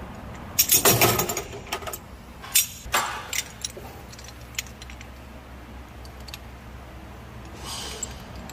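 Metal tools and parts clinking and rattling in short bursts, the loudest cluster about a second in, then a few single clinks, over a steady low hum.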